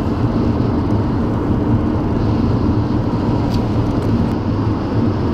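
Steady road noise of a car driving at speed: tyre rumble with a low engine drone, heard inside the moving vehicle.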